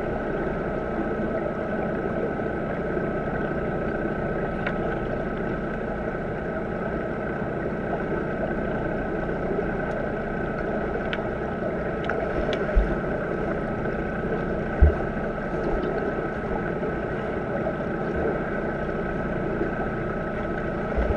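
Muffled underwater pool noise picked up by a camera lying on the pool floor: a steady rushing of water stirred by finned swimmers, with a faint steady high tone and a few light clicks. Two low thuds come about two-thirds of the way through.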